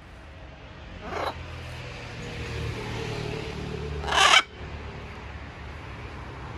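Blue-and-gold macaw giving two short, harsh squawks: a softer one about a second in and a louder one about four seconds in, over a low background rumble.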